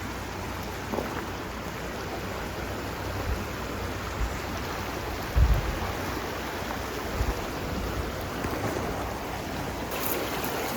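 Steady rushing of a flowing mountain stream, with a few short low thumps on the phone microphone, the loudest about halfway through.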